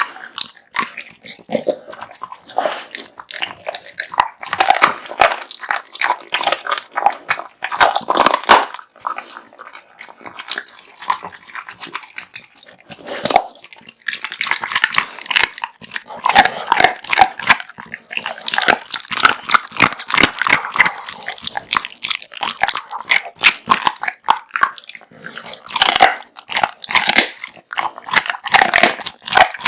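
American Bully dog chewing and crunching raw meat and bone, with rapid irregular bites and cracks. The chewing thins out for a few seconds about a third of the way in, then picks up again.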